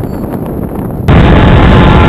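Wind buffeting a camera microphone; about a second in it cuts abruptly to a much louder, muffled rushing roar.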